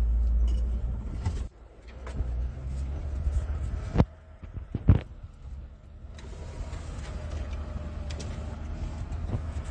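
Jeep Wrangler driving on a dirt trail, heard from inside the cabin as a low engine and tyre rumble. The rumble drops sharply about a second and a half in and carries on more quietly. Two sharp knocks come about four and five seconds in.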